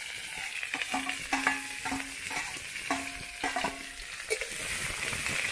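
Sliced onions sizzling as they fry in hot oil in an iron wok, stirred with a metal spatula that scrapes and clicks against the pan.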